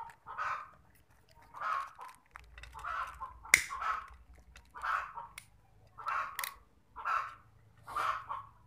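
Domestic fowl calling over and over, about one call a second, with a single sharp click about three and a half seconds in.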